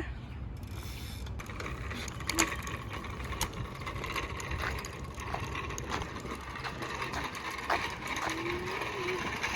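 Rapid, dense mechanical clicking and rattling, starting about a second and a half in and going on steadily, like a ratchet or a small mechanism in motion.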